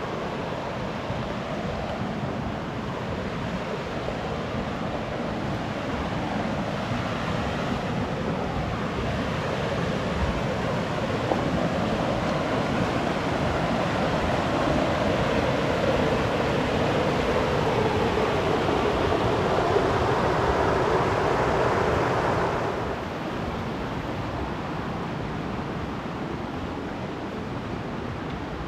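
Creek water rushing over a small rocky cascade: a steady wash of noise that grows louder toward the middle, then drops off sharply about three-quarters of the way through.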